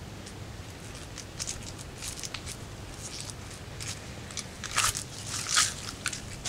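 Dry, papery onion skin crackling and crunching as a whole onion is peeled by hand, in short bursts, the two loudest a little under five seconds in and just after.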